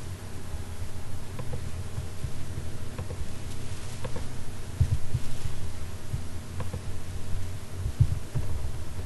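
A steady low hum with irregular soft thumps, the loudest about five and eight seconds in, and a few faint clicks scattered through.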